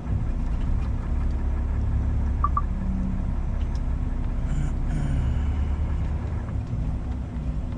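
Truck's diesel engine running at low speed, heard from inside the cab, as the rig inches back and forth in deep snow to pack down a track. Two quick beeps sound about two and a half seconds in.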